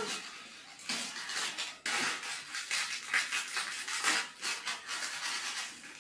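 Food being prepared by hand at a kitchen counter: irregular scrapes, rustles and light clatter of a spoon, bowls and ingredients being handled, in short scratchy strokes starting about a second in.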